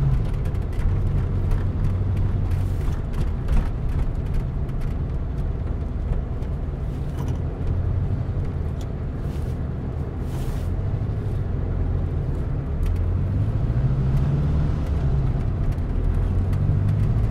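Car interior sound while driving: a steady low engine and road drone whose pitch slowly sinks and then rises again.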